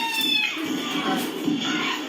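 Music from a homemade action-film style soundtrack: high, bending tones over a busy lower layer of sound.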